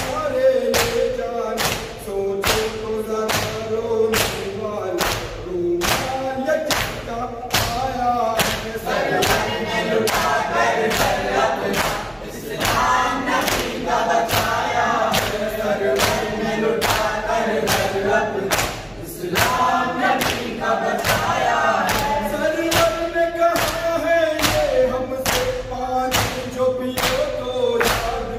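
Men chanting a Shia nauha together, led by one voice, while they beat their chests with open hands in a steady matam rhythm of about two slaps a second.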